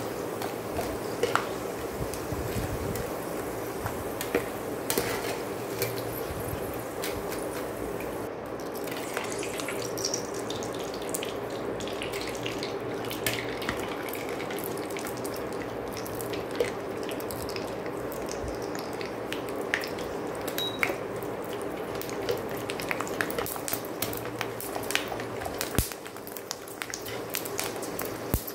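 Rice-flour vadiyalu (papads) deep-frying in hot oil: a steady sizzle broken by many small pops and crackles, over a faint steady hum.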